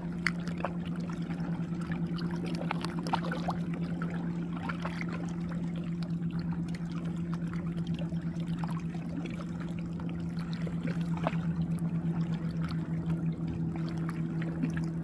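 River water trickling and lapping with small crackles, over a steady low hum.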